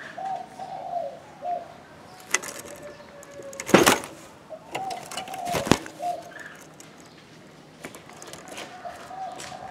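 Caged spotted dove cooing in three low phrases, the stammering 'cà lăm' coo its keeper describes. Two sharp knocks come midway.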